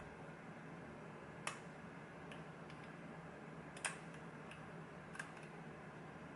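Lock pick and tension wrench working the pins of a pin-tumbler lock: a few faint, separate clicks, the clearest about a second and a half in and near four seconds in, over a steady background hiss.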